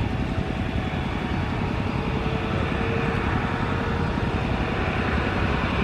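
Airbus A330 jet engines running, a steady roar with low rumble and hiss and no breaks.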